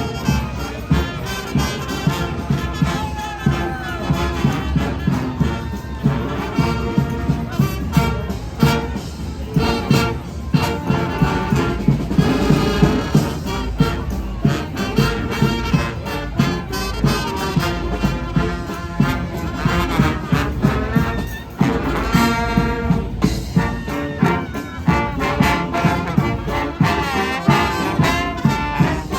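Street brass band playing: trumpets and trombones over drums keeping a steady beat of about two hits a second.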